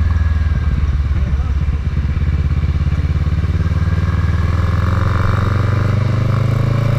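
Kawasaki ER-6n's parallel-twin engine running at road speed, muffled by a waterproof camera case. Its pitch rises slowly in the second half as the bike accelerates.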